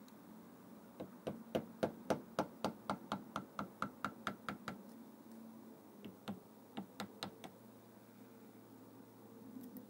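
Hammer striking a screwdriver used as a punch on a differential clamped in a vise: a quick run of metal-on-metal knocks at about four a second with a short ring to each, then a pause and a few more strikes.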